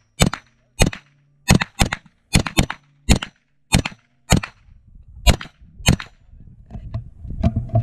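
SIG MPX pistol-caliber carbine firing a string of about fourteen shots over six seconds, some single and some in quick pairs, each crack followed by a short echo off the range.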